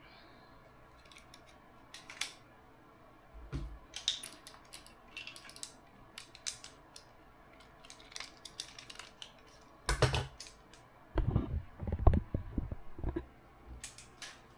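Metal clamp and ball-head arm being handled: scattered clicks and small metallic clinks, with a cluster of heavier knocks about ten to thirteen seconds in.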